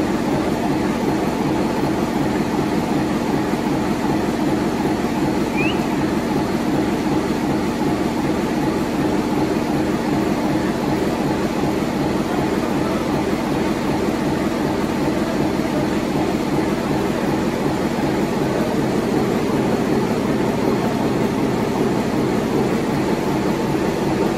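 Large twin-turbo diesel engine running steadily: a dense, rapid, even firing rhythm with a steady hum underneath, holding the same speed and loudness throughout.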